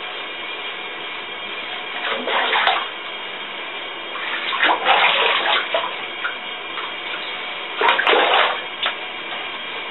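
Bathwater splashing as a dog is washed in a tub: three louder bursts of sloshing water, about two, five and eight seconds in, over a steady hiss.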